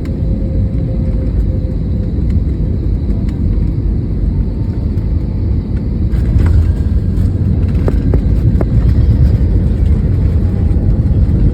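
Steady low rumble of an Airbus A320neo airliner, growing louder about six seconds in, with a few light rattles.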